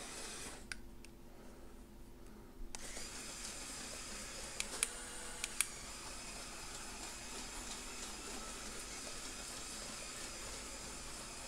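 Brick-built Mould King QJ steam locomotive running round a circle of plastic track on its two electric motors: a faint steady motor-and-gear whir. It goes briefly quieter in the first couple of seconds and has a few light clicks about five seconds in.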